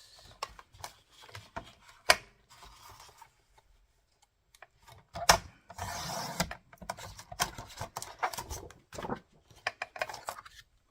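Paper and card being handled on a craft table: irregular rustling, sliding and light taps, with sharper knocks about two and five seconds in.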